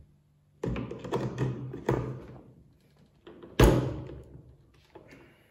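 A few hollow knocks and thunks, the loudest about three and a half seconds in, as longboard wheels are fitted onto the truck axles.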